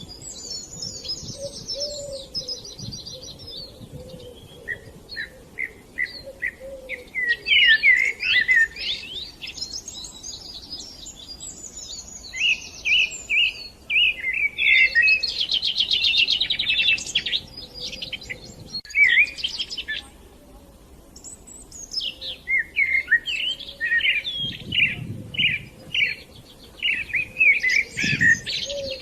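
Songbirds chirping and singing, with several overlapping calls and quick trills. Near the middle there is a fast, rattling trill, then a short lull of a few seconds before the chirping picks up again.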